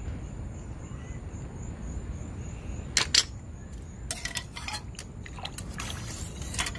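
Metal kitchen tongs clicking and clinking against metal nitro RC exhaust pipes and the ceramic crock pot they soak in. There are two sharp clicks about three seconds in, then a run of quick, lighter clinks over the last few seconds.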